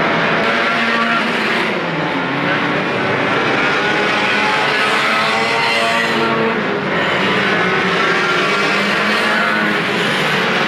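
Engines of a pack of banger racing cars running hard together, a dense mix of engine notes rising and falling as they rev through the bends.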